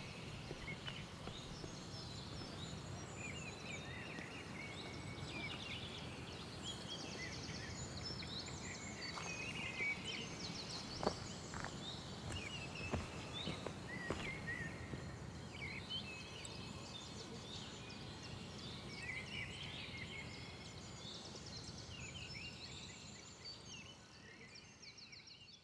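Several songbirds chirping and trilling in forest, over a steady low background noise, with a few sharp knocks around the middle; it fades out near the end.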